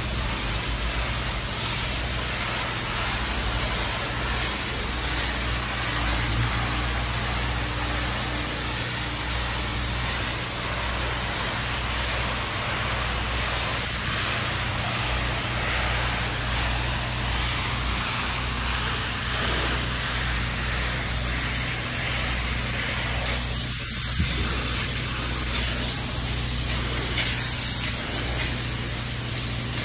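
Closed-cell spray foam gun spraying foam onto a wall in long passes: a steady, continuous hiss, with a low hum underneath.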